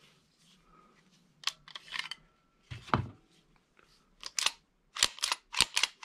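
Metal clicks and clacks of a CZ TS2 9mm pistol being handled: the magazine is released and pulled out, and the slide is worked. There are scattered single clicks, then a quick run of sharp clicks near the end.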